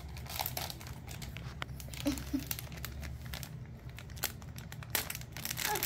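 Plastic snack bag crinkling and rustling in the hands, with many scattered short crackles.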